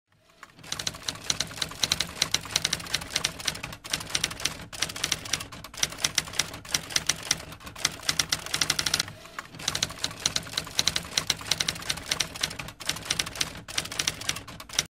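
Typewriter keys clacking in a rapid, continuous run with a few short breaks, cutting off suddenly near the end.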